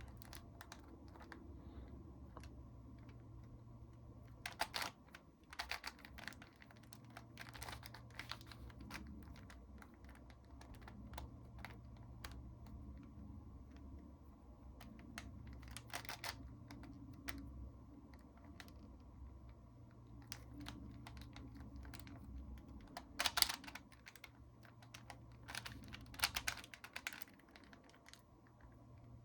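Plastic 4x4 Rubik's cube being twisted by hand, its layers clicking and clacking in irregular runs, with a few louder snaps. A steady low hum sits underneath.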